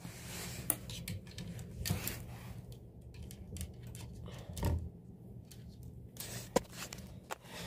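Handling noise: scattered soft rustles and clicks as plush toys are moved about and the phone is carried, with a dull bump about four and a half seconds in and a sharp click near the end.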